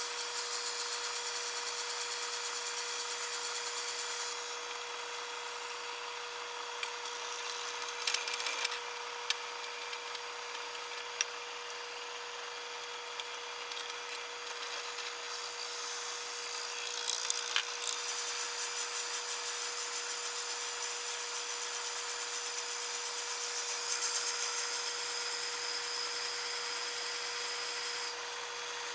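Power tool cutting and shaping a walnut gun stock, its motor humming steadily while the cutting noise comes in sections that stop and start. A few sharp clicks fall in the middle.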